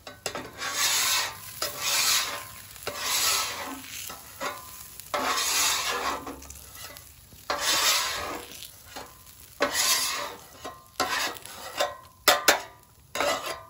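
Steel bench scraper pushed across a flat-top griddle's steel cooktop in repeated long scraping strokes, about one a second, scraping burnt residue off the cooking surface. A few sharp clacks come near the end.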